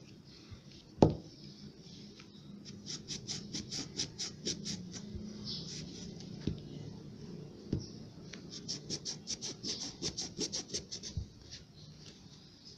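Cloth towel scrubbing rust off a pair of vinegar-soaked needle-nose pliers, in quick scratchy back-and-forth strokes of about four or five a second, in two spells. A single sharp knock comes about a second in.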